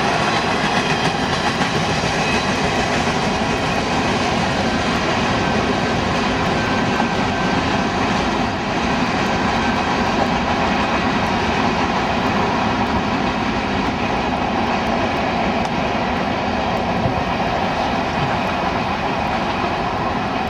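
Freight train of boxcars and tank cars rolling past, a steady noise of steel wheels running on the rails.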